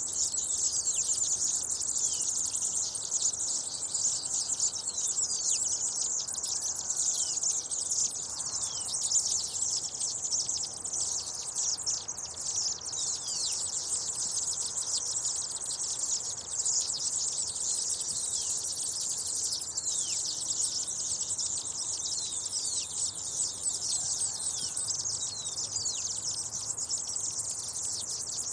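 A flock of seedeaters (Sporophila) calling together: a dense, unbroken chatter of many high, short chirps, most of them quick falling notes, overlapping at a steady level.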